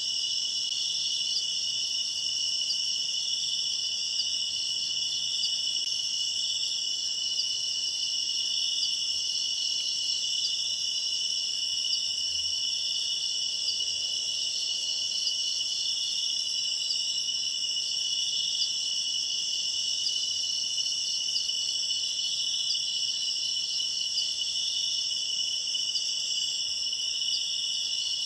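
Night insect chorus of crickets and similar insects: a steady, unbroken high trilling at several pitches at once.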